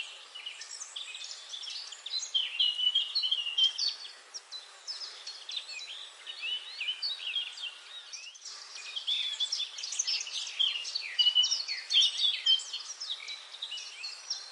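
A chorus of many songbirds singing at once: dense, overlapping chirps, tweets and trills, high-pitched, over a faint outdoor hiss.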